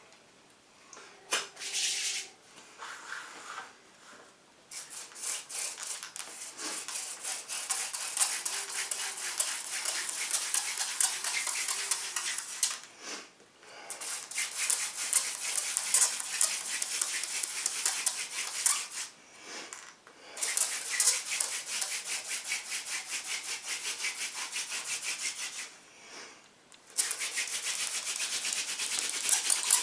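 Fire-making hand drill: a cattail spindle spun fast back and forth between the palms against a dry poplar hearth board, making rapid, rhythmic rubbing in long runs broken by a few short pauses. This is the drilling stage of working up an ember by friction.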